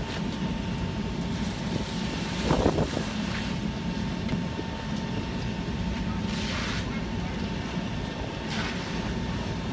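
Steady roar of a burning house being fought with a fire hose, with a faint steady high whine under it. A short louder burst about two and a half seconds in, and brief hissing surges later.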